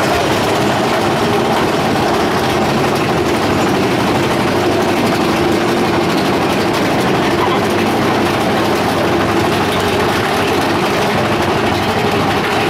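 Big Thunder Mountain Railroad mine-train roller coaster running on its track, heard from aboard as a loud, steady rumble of the train.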